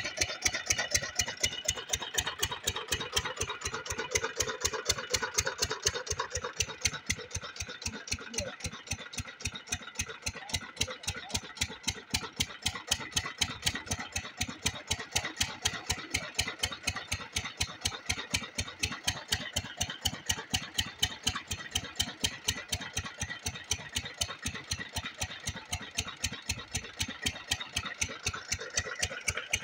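Kranti single-cylinder diesel water-pump engine running steadily under load, driving the pump, with an even, rapid chugging exhaust beat that holds the same speed throughout.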